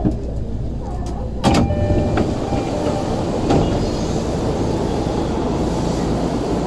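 Electric commuter train running on the station tracks: a steady rumble of wheels on rail, with a sharp metallic clank about a second and a half in.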